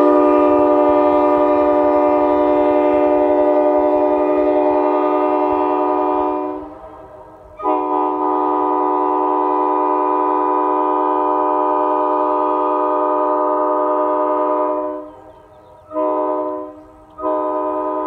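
Nathan K5LA five-chime locomotive air horn with 1980s bells, blown loud and steady as one multi-note chord: two long blasts, a short one, then another long blast starting near the end, the long-long-short-long grade-crossing signal.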